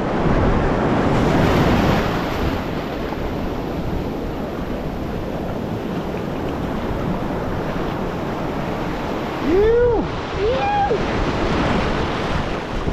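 Surf breaking and washing up the beach, with wind buffeting the microphone. A short, pitched vocal call rises and falls about ten seconds in.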